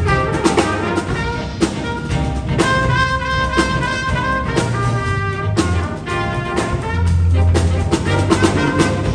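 Jazz big band playing: the brass section sounds sustained chords and accented figures over steady drum kit strokes.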